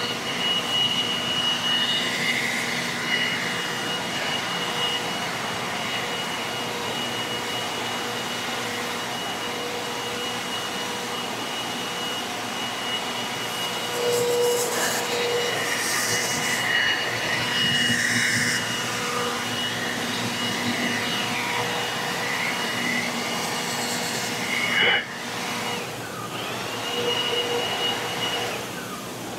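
Grain bin clean-out machinery running steadily: a high whine over a rushing noise as soybeans are moved out of the bin. Near the end the whine cuts out briefly, then returns.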